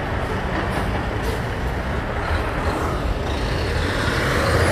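Street traffic with a heavy dump truck's diesel engine rumbling, growing louder as it draws near toward the end.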